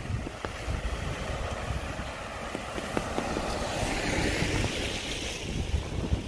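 A car drives past close by on a wet road, its tyres hissing on the wet tarmac. The swish builds up, is loudest about four seconds in, then fades away.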